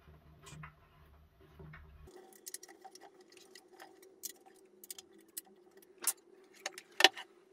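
Light metallic clicks and taps of a bolt being fastened by hand onto a stainless steel chute and pot lid, irregular, with one sharper click near the end.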